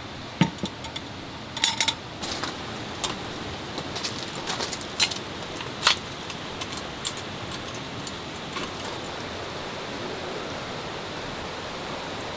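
Steady rain, with a string of irregular sharp clicks and clinks over the first seven seconds or so.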